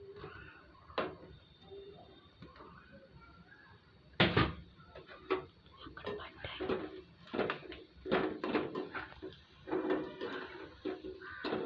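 Irregular metal knocks and clinks of a slotted spoon against a steel pan while gulab jamun balls fry in oil. The first and loudest clatter comes about four seconds in, and the knocks keep coming after it.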